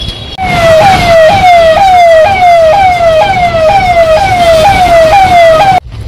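Electronic siren of a police vehicle sounding a fast falling wail that repeats about twice a second. It starts abruptly and cuts off abruptly near the end.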